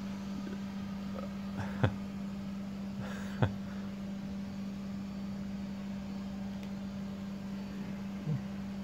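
Steady low hum at one pitch, with a few short knocks, one about two seconds in, one about three and a half seconds in, and a softer one near the end.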